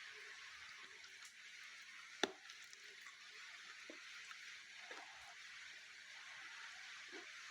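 Steady hiss of rain, with a few faint soft crunches and one sharp click about two seconds in.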